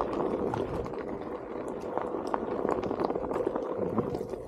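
Onewheel GT S-series electric board climbing a steep dirt trail: a steady hum from its hub motor under load, with the tyre crackling and clicking over dirt and small stones.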